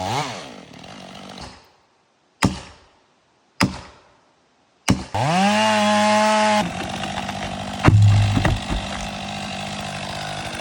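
Chainsaw in short separate snippets. Its engine revs and dies away at the start, two sharp knocks come between stretches of silence, and then the saw revs up quickly to a steady high run. It drops to a lower steady run, with a heavy thud about eight seconds in.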